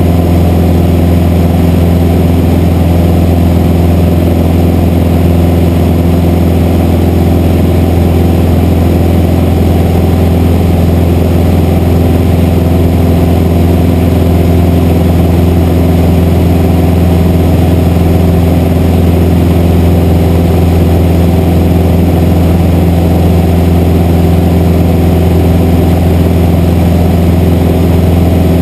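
Single-engine light aircraft's engine and propeller heard inside the cockpit in flight: a loud, steady, deep drone that does not change.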